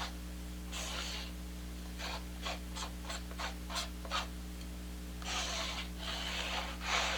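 Rubbing and scraping strokes of white base-coat paint being spread over a stretched canvas: a quick run of short strokes, then longer, steadier rubs near the end, over a steady low hum.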